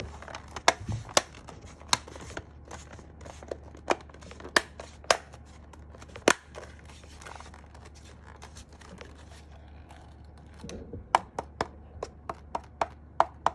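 Plastic clicks and knocks as the top case of a Sky87 mechanical keyboard is fitted back on and pressed into place. About eleven seconds in, a quick even run of keystrokes begins, roughly four a second, as the reassembled board is typed on to test it.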